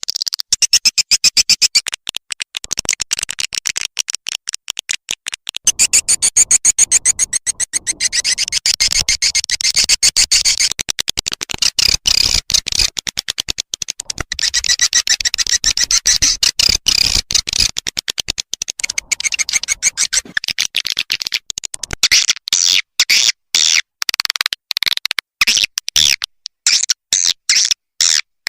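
Swiftlet calling sound, the lure recording played to attract edible-nest swiftlets: high-pitched twittering chirps in a fast, unbroken stream of short pulses.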